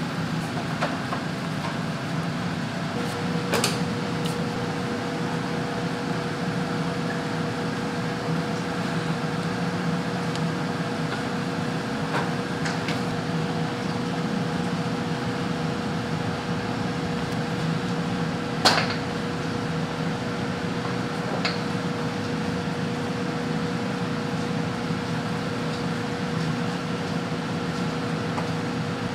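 Steady hum of kitchen appliances and ventilation, with a steady higher whine joining about three seconds in. A few sharp clinks of utensils sound now and then, the loudest about two-thirds of the way through.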